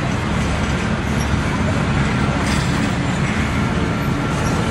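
Double-stack intermodal freight train passing: a steady, loud noise of steel wheels rolling on the rails.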